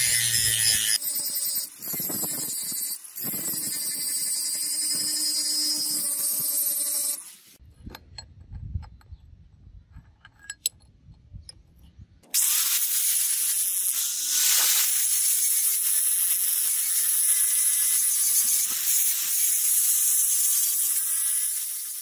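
Angle grinder with an abrasive disc grinding a steel knife blank clamped in a vise. It runs for about seven seconds, stops for a few seconds with only small knocks as the blank is handled, then grinds again from about twelve seconds in to the end.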